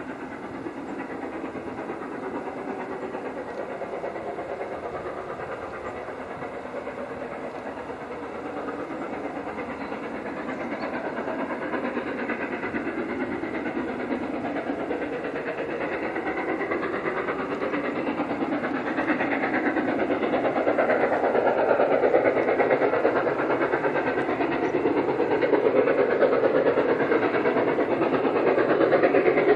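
LMS Princess Royal Class 4-6-2 steam locomotive No. 6201 'Princess Elizabeth', a four-cylinder Pacific, working hard on a long climb with its train of coaches. It gets steadily louder as it approaches.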